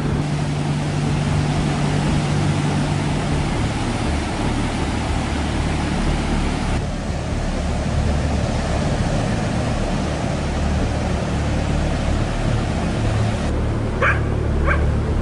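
Steady wind noise rumbling on the microphone, changing in tone twice. Near the end a dog barks twice.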